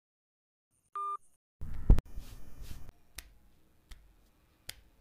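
A short electronic phone beep about a second in, as the call ends. Then a thump and a few sharp, sparse footstep taps under a second apart as he gets up and walks.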